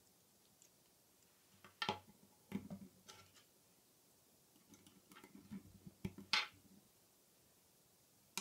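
Plastic K'NEX rods and connectors clicking as they are snapped together and handled, with a few light knocks on the table. A handful of separate sharp clicks, the loudest about two seconds in and a little past six seconds.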